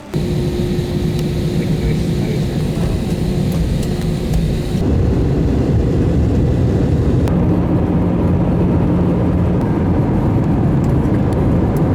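Loud steady rumble of a vehicle under way, with a steady low hum; the sound shifts about five seconds in.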